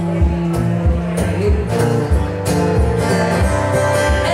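Live acoustic guitar strummed in a steady rhythm while a woman sings held notes, amplified through a PA.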